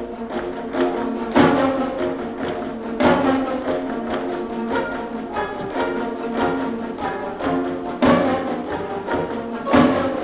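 Korean gayageum zither ensemble playing a lively passage of many plucked strings, with a janggu drum. Strong accented chords land about a second and a half in, at three seconds, at eight seconds and near the end.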